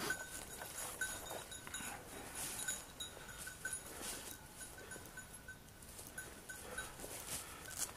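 A small bell tinkling faintly and irregularly, two or three rings a second, like a bell on a moving hound's collar, over soft rustling footsteps through woodland undergrowth.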